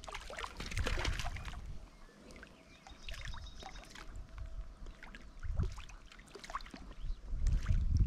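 A hooked trout splashing and thrashing at the river's surface for the first second and a half, then lighter water sounds and scattered small splashes. Low wind rumble on the microphone comes and goes.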